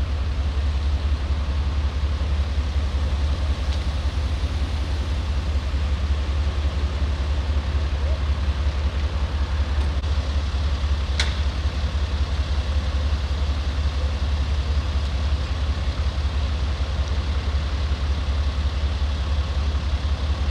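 Emergency vehicles' engines idling at the scene, a steady low-pitched drone. A single sharp click about halfway through.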